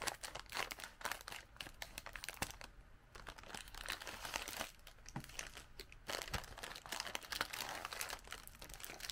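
Scissors cutting into a plastic snack bag, then the bag's film crinkling and crackling as it is pulled open and a wrapped inner pack of cookies is drawn out.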